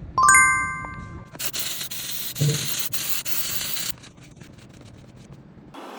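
A metallic clink that rings briefly, followed by about two and a half seconds of loud hissing, scraping noise that stops abruptly.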